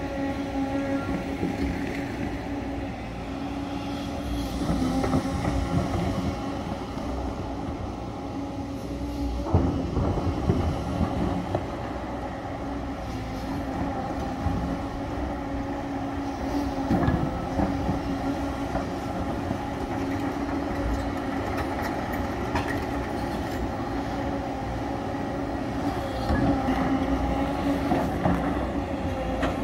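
Tracked hydraulic excavator's diesel engine running with a steady drone while working broken rock. Sharp knocks of rock being struck cut through it, the loudest about ten seconds in and another about seventeen seconds in.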